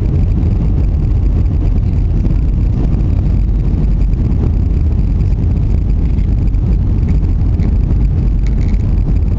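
Steady, loud rumble of engine and airflow noise heard inside an airliner's cabin as it descends on approach to land.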